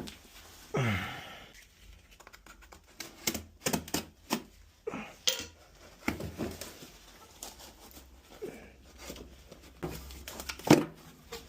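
Hands unpacking and handling a new boiler low water cutoff and its probe: scattered clicks, knocks and rustling of packaging.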